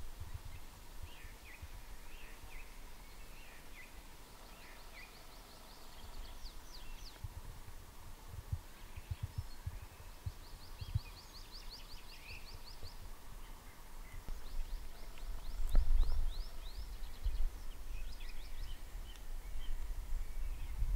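Small songbirds singing in the forest: several rapid trilled phrases of quick high notes, each lasting two or three seconds, with scattered chirps between them. Under the birdsong there is a low rumble with thumps, loudest about two-thirds of the way through.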